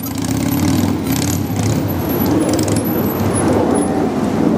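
Street traffic noise: a steady rumble of motor vehicles.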